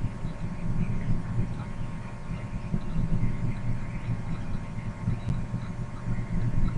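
Steady low hum with an uneven throbbing under it: background noise on the recording.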